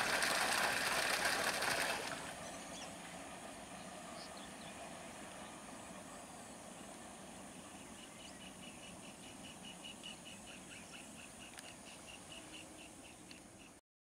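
Electric multiple unit train running on the rails: loud wheel and rail noise that drops off abruptly about two seconds in, leaving a faint running sound that slowly fades away. In the second half a short high chirp repeats about four times a second.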